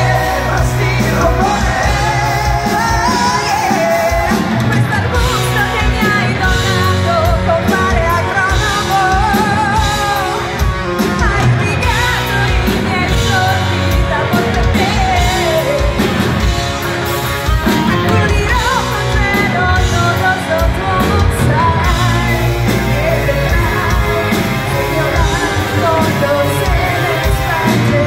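Heavy metal band playing live, with drums, electric guitars and bass under a sung lead vocal, loud and steady in a large hall.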